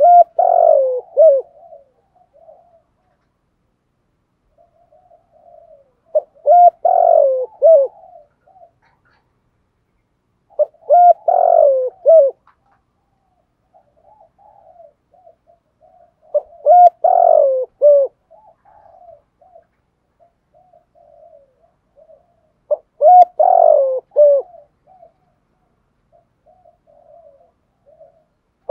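Male spotted dove cooing: five phrases of several loud coos falling in pitch, one about every five to six seconds, with softer coos in between.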